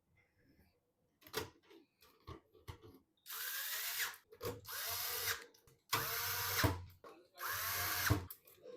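Small electric screwdriver driving screws in four short runs of about a second each, its motor whine rising in pitch as each run starts, after a few light clicks of parts being handled.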